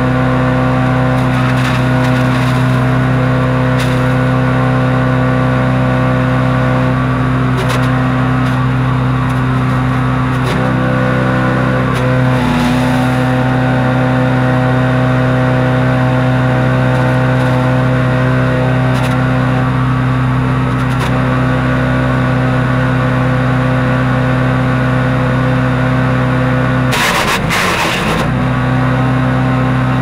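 Harbor Freight Predator wood chipper's gas engine running steadily at speed while branches are fed through, with brief crackling bursts of wood being chipped. Near the end the engine pitch drops as it bogs under load, then it recovers.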